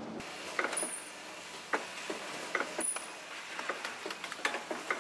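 Automated carton-packing machine running: irregular clicks and clacks of its moving parts over a steady background hum, with a short high-pitched sound about every two seconds.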